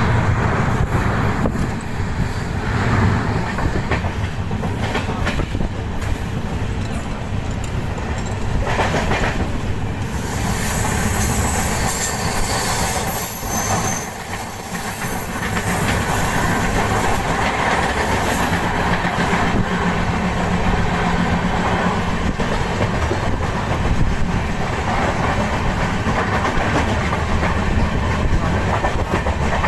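Passenger train running at speed, its wheels clattering over the rail joints. From about ten seconds in, another train passes close alongside on the next track, adding a brighter rushing rattle.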